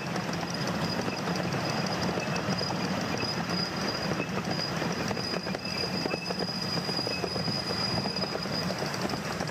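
Miniature railway passenger carriages running over the track: a steady rumble and rattle of wheels on the rails, with a thin, high-pitched wheel squeal held through most of it, strongest in the middle, as the train rounds a curve.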